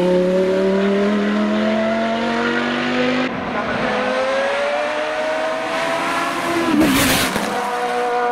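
Race cars' engines accelerating uphill one after the other. First a Lamborghini Huracán racer pulls away with a rising engine note that breaks off about three seconds in. Then an open-cockpit sports prototype revs up through a bend, with a short loud rasp a little before the end.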